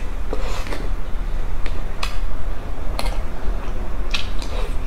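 Close-miked eating sounds: scattered clicks and crunchy bites as food is chewed, and a metal fork tapping a tray, over a steady low hum.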